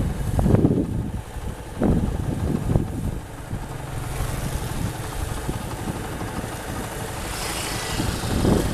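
Combine harvester's engine running steadily at a low rumble, with gusts of wind buffeting the microphone in the first couple of seconds and again near the end.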